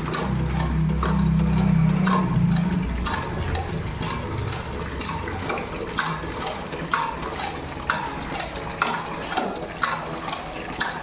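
Hand pump being worked to draw water, with a squeaky clank on each stroke about once a second and water gushing. A low rumble fills the first few seconds.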